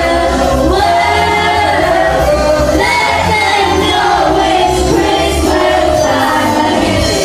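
Music: voices singing a pop song over a backing track with a steady bass beat.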